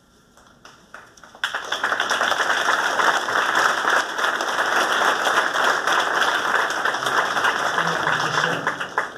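Audience applauding. The clapping starts abruptly about a second and a half in, stays dense and steady, and thins out near the end.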